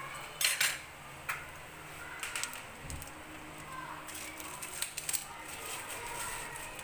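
Cumin seeds frying in hot oil in a pan, a soft sizzle with irregular sharp crackles and pops as the seeds roast for a tempering.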